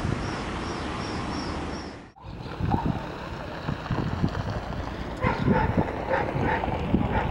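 A passenger train running past with a steady rumble, over a faint high chirp that repeats about two and a half times a second. After a sudden cut, a CKD diesel locomotive comes on under power, and a dog barks several times over it from about five seconds in.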